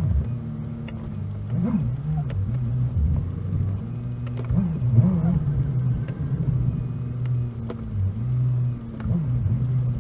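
Car engine and road noise on a freeway drive, played at four times normal speed. A steady low drone shifts quickly up and down in pitch as the car speeds up and slows, with faint scattered clicks.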